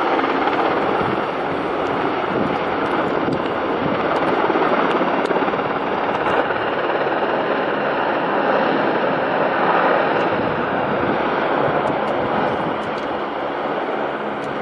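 PZL W-3 Sokół twin-turbine helicopter in flight, a steady rush of turbine and rotor noise, with wind on the microphone.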